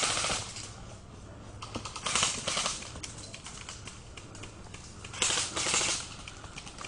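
Airsoft rifles firing full-auto bursts, a fast even rattle of clicks. There are three bursts: one right at the start, another about two seconds in, and a third about five seconds in, with scattered single clicks in between.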